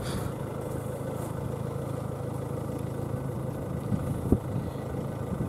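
Steady wind buffeting the microphone, with one sharp knock about four seconds in.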